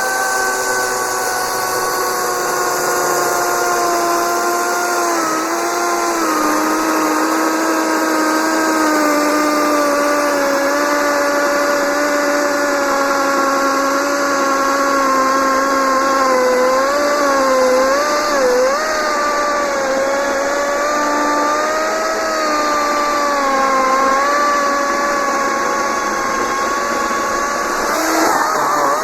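Kobalt 40V Max 14-inch cordless chainsaw's electric motor whining under load as it cuts through an 18-inch poplar trunk. The pitch sinks slowly over the first few seconds, dips briefly now and then as the chain bogs in the wood, and wavers near the end.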